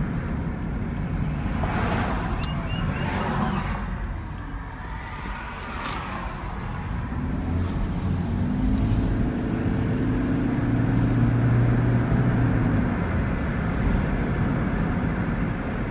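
Car engine and tyre noise heard from inside the cabin while driving. The engine note comes up about halfway through, holds for several seconds, then eases off.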